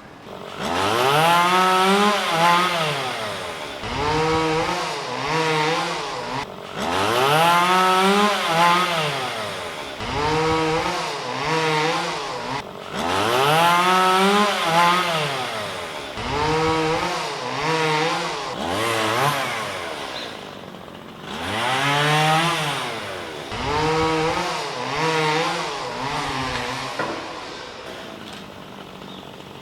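Chainsaw revved again and again, each rev rising in pitch and falling back, some long and some short in quick succession. It drops off near the end.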